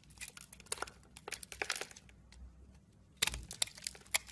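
A bar of soap being crumbled and cracked apart by hand, flaking with dense crackling and snapping. There are two spells of crackling with a short pause in between.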